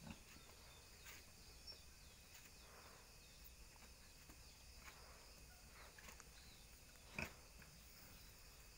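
Near silence: faint, steady insect chirring, with a few soft clicks and one short, louder sound about seven seconds in.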